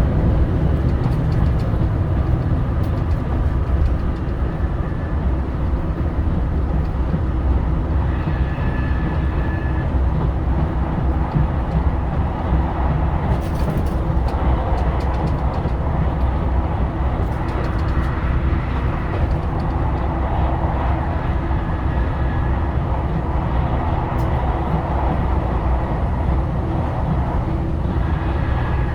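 JR Shikoku 2000 series tilting diesel railcar running at high speed, heard from inside the car: a steady engine drone with wheel and rail running noise.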